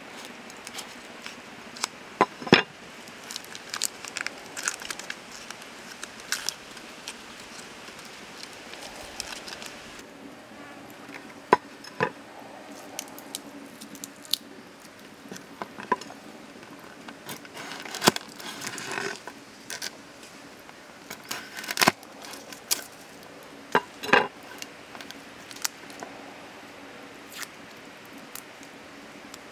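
Shallot and garlic skins being peeled by hand and with a cleaver: dry crackling of papery skins, with several sharp clicks and knocks a few seconds apart on the wooden board.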